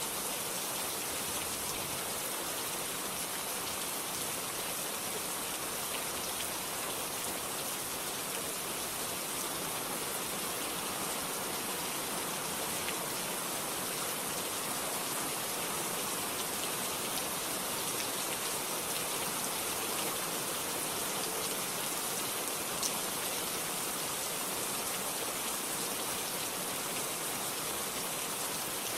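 Steady rain falling, a dense even hiss with scattered individual drop ticks, and no thunder.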